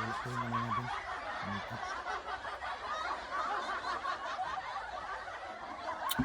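A steady, crackly hiss that starts and stops abruptly, with a man's short low chuckle or hum twice in the first two seconds.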